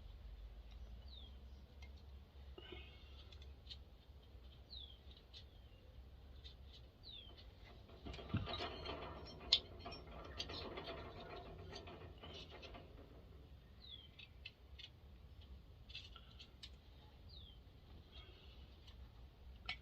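Faint, short, falling bird chirps repeating every few seconds. From about eight to thirteen seconds in there are light clicks and clatter of small parts being handled, with one sharp click in the middle.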